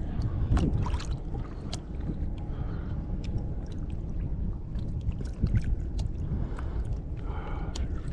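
Steady low rumble of wind and water around a small fishing boat, with scattered small clicks and splashes.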